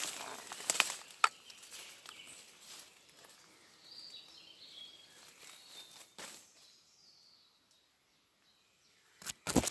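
Footsteps through dense leafy undergrowth, with leaves and branches rustling as they brush past and a few sharp twig snaps. The sound fades to near quiet, then two louder bursts of rustling come near the end.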